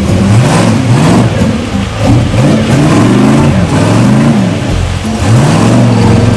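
Jeep Wrangler's engine revving up and down over and over, with its large mud tyres spinning and throwing mud in a deep mud hole.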